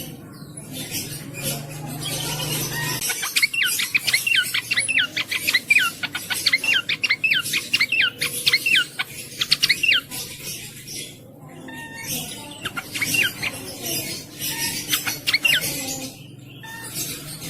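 Cingcoang (jongkangan) singing: a fast string of sharp, downward-sweeping whistled notes. It comes in two phrases, a long one starting about three seconds in and a shorter one after a brief pause.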